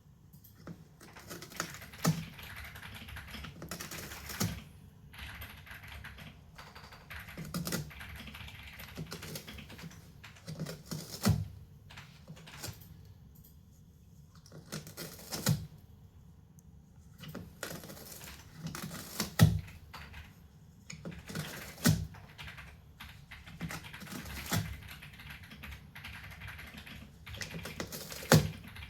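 A cat clawing and working at cardboard: irregular rasping scratches broken by sharp, uneven crackling taps.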